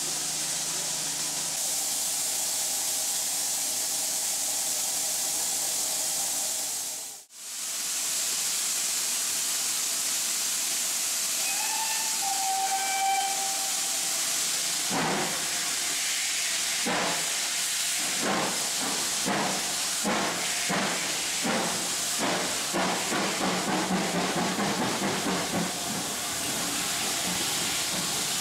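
Steam train heard from a carriage window with a steady rushing hiss, then a short steam whistle a little before halfway. After that, the exhaust beats of GWR Saint class 4-6-0 No. 2999 start slowly and quicken to about four a second as the locomotive pulls away with the train.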